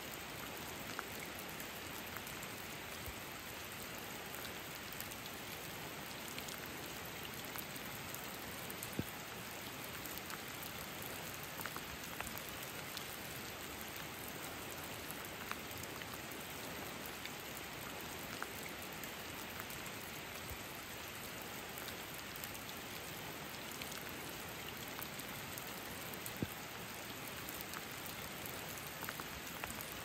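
Steady rain falling on the forest, with single drops striking close by now and then, a few louder than the rest.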